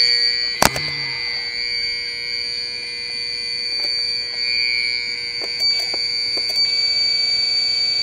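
Battery backup sump pump alarm sounding a steady, unbroken high-pitched tone, with a single sharp knock about half a second in.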